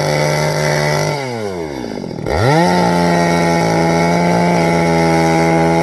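Two-stroke chainsaw engine revving high; the throttle eases about a second in and the revs fall away, then it is opened again and the revs snap back up and hold steady.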